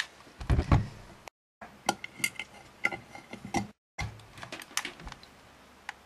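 Irregular light clicks, taps and knocks of tools and hands handling on a metal pan workbench, a few with a short metallic ring, broken twice by brief dropouts to silence.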